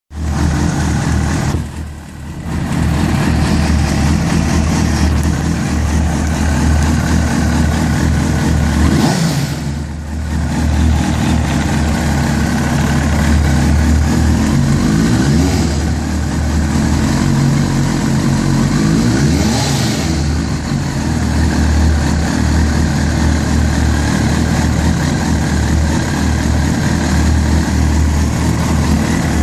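Kawasaki Ninja ZX-6R (ZX600J) inline-four engine running steadily at low revs. The engine note dips briefly about two seconds in and again about ten seconds in, then recovers.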